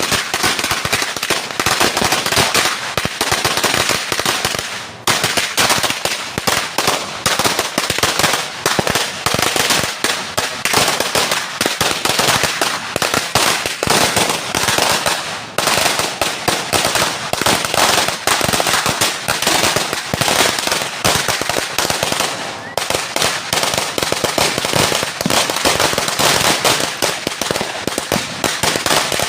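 A 1,000-round Judas belt firecracker string (sawa) going off: a loud, dense, continuous rattle of small bangs that thins briefly three times.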